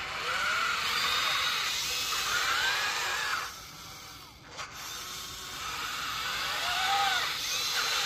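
Electric drive motors and gearboxes of a Huina radio-controlled construction model whining, the pitch rising and falling as the model speeds up and slows. The motors ease off briefly a little before halfway, with a short click as they start again.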